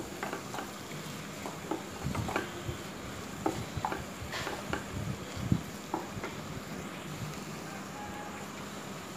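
Wooden spatula stirring frying vegetables in a pan, with scattered light knocks and scrapes against the pan over a steady low sizzle.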